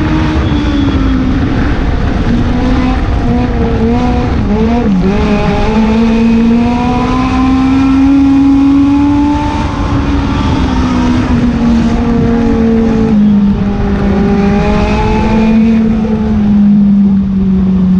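Legend car's Yamaha four-cylinder motorcycle engine heard from inside the cockpit, running at part throttle with its pitch wandering up and down as the driver works the throttle. The engine note drops slowly over the last few seconds as it eases off, over a steady rush of wind and road noise.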